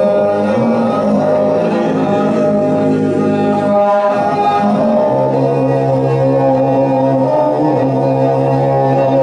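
Tuvan throat singing: a man's sustained droning voice with a stack of ringing overtones, over a bowed long-necked fiddle. The drone breaks off briefly about four seconds in and resumes on a lower held pitch.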